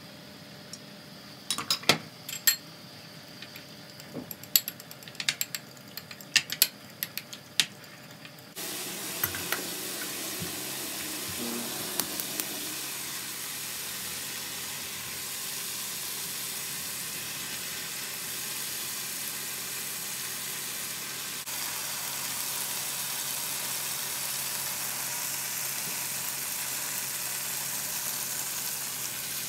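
A metal fork clinks against a ceramic bowl in a series of sharp ticks as a sauce is stirred. About a third of the way in this gives way to a steady sizzle of diced chicken frying in a pan.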